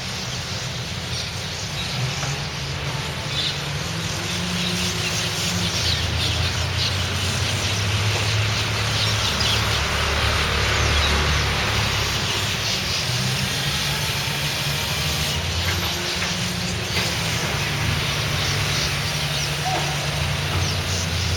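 Many birds perched on a wire chirping and twittering continuously, with short, dense calls overlapping each other, over a steady low rumble.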